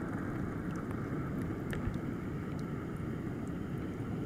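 Steady low rushing background noise, with a few faint high ticks scattered through it.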